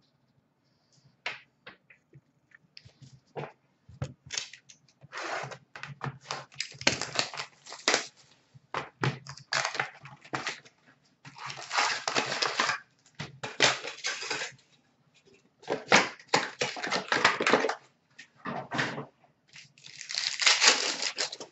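Upper Deck Ice hockey card pack wrappers crinkling and tearing open in repeated bursts, with small clicks and rustles of the cards being handled between them.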